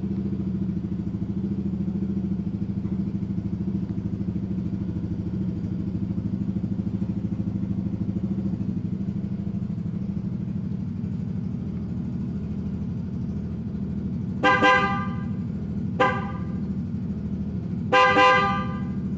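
Yamaha Mio GT scooter's single-cylinder engine idling steadily through an R9 aftermarket exhaust. Near the end a FIAMM horn sounds three times: a short blast, a brief toot, then a longer blast.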